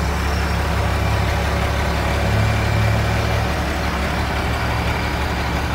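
Crane truck's diesel engine running steadily while its hydraulic crane is worked from the control levers; the low hum grows louder for about a second midway.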